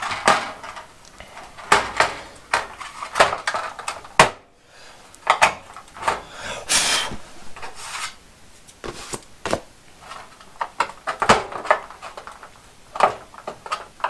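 Thin sheet-metal reflector panel being pressed and slid into a fluorescent light fixture: irregular light metal knocks and clicks, with a longer scrape of metal on metal about halfway through.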